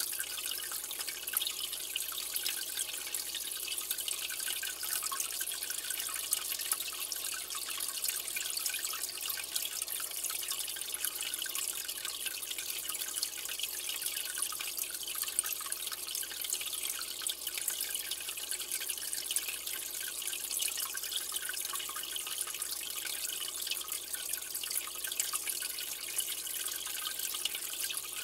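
Steady trickling and dripping of aquarium water, with fine crackles of splashing, unchanging throughout.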